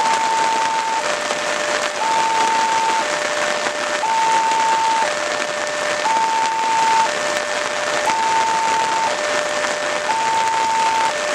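Railroad level-crossing warning alarm sounding: two electronic tones alternating high and low, each about a second long, repeating steadily. Heavy rain hisses beneath it.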